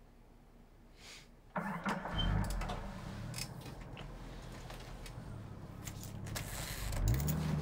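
A car engine starting and running, with a low steady hum, then a rising pitch about seven seconds in that settles into a steady run as it revs.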